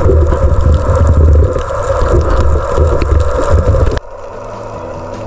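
Loud, steady underwater rumble and hiss of water and air around the camera during a dive. It cuts off abruptly about four seconds in, and quieter background music takes over.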